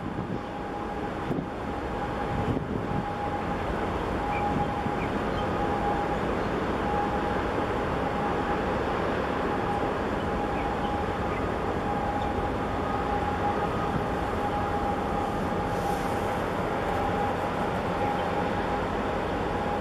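Steady rumble and hum of ship machinery from the passing container ship COSCO Denmark and its attending tug, with a thin steady whine on top. It swells over the first few seconds, then holds.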